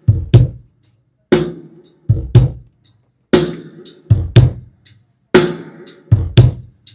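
Drum-kit test track playing through a Barclay AS15A active speaker: a sparse beat of bass-drum and snare hits, a quick pair then a single hit repeating about every two seconds, with silence between the strokes.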